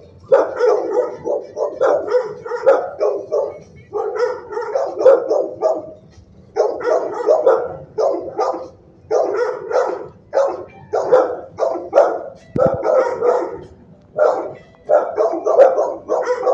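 Shelter dogs barking in quick runs of several barks each, with short breaks between the runs.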